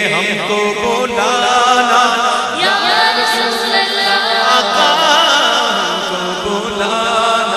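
A naat sung by a male voice, with long, wavering drawn-out notes and no steady beat.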